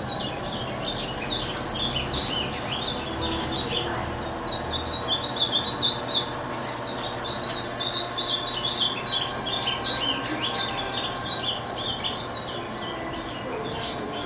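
A trio of pet songbirds chirping and singing together, a continuous stream of quick, high notes.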